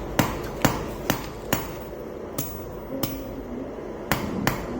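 Hammer striking steel in blacksmith forging, about eight sharp blows. The first four fall evenly about half a second apart, and the rest come at uneven gaps.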